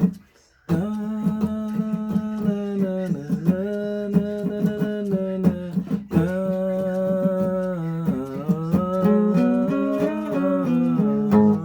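A woman humming a slow tune without words, in long held notes that step up and down, with a brief pause just after the start and another about six seconds in.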